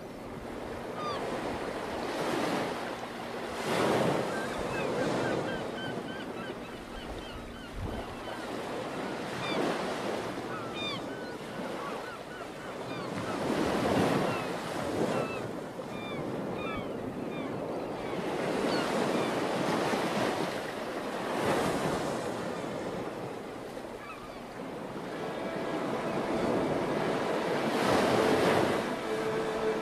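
Waves washing in and drawing back in slow swells every few seconds, with faint short high chirps over them; soft sustained music notes come in near the end.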